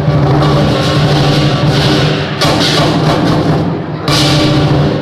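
Lion dance percussion playing loudly: a large Chinese lion drum with a ringing gong underneath and sudden cymbal crashes, one about halfway through and another about a second before the end.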